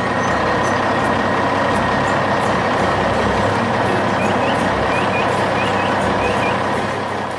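Heavy construction machinery sound effect: a steady engine noise with a continuous high whine. A few faint short chirps come in the second half.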